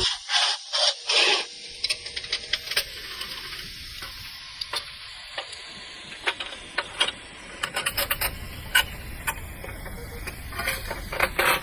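Short scraping rasps, then scattered sharp clicks and knocks of steel parts being handled and worked, with a cluster of knocks near the end.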